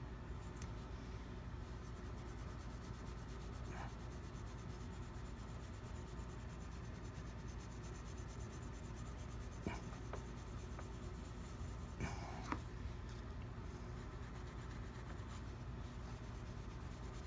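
Faint rubbing and scratching of a fingertip working over the repaired black bite area of a metal woodwind mouthpiece, likely rubbing off leftover tape glue. A few light clicks come about four, ten and twelve seconds in, over a low steady hum.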